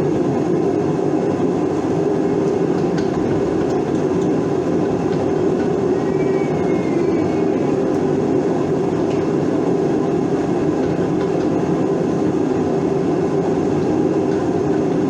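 A loud, steady mechanical drone with no rhythm or break.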